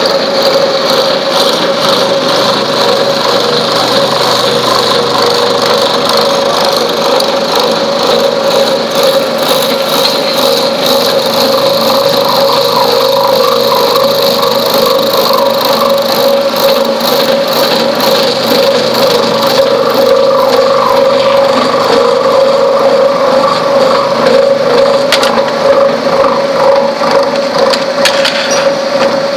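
Pliers milling machine cutting pliers blanks: a loud, steady machining noise with a constant whine and a fast, continuous crackle of the cutter.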